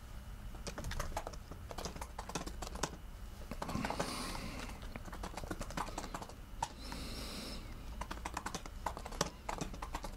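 Typing on a computer keyboard: a fast, irregular run of key clicks as a line of text is entered.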